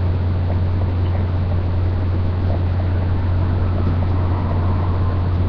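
Steady low hum with a faint hiss over it, unchanging throughout; no burp is heard.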